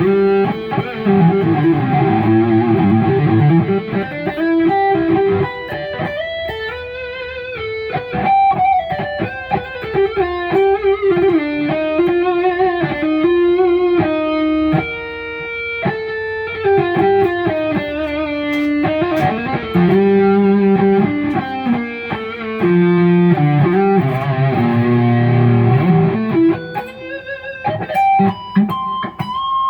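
Kiesel Crescent electric guitar with Kiesel Polarity active pickups playing single-note lead lines through a distorted Mesa amp channel with added delay, with string bends and vibrato on held notes. Heard in the room through a phone recording.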